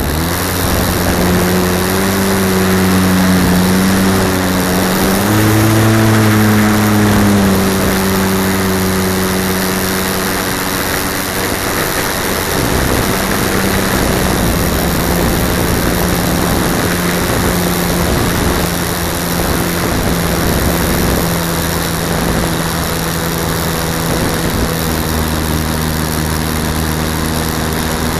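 Air rushing over a key-fob camera on a radio-controlled slope-soaring glider in flight, a steady loud rush with a humming tone that rises briefly about six seconds in, fades after about eleven seconds and comes back near the end.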